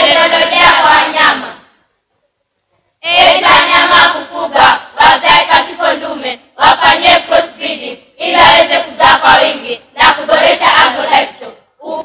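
A group of children's voices in unison, loud, in short phrases with brief pauses between them.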